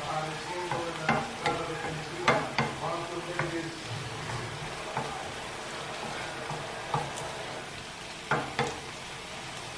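Sliced mushrooms and red onions sizzling in a nonstick frying pan, stirred with a wooden spatula that knocks and scrapes against the pan now and then.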